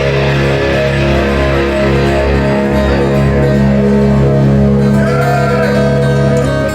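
Live rock band playing loudly, with guitar chords held over a strong bass.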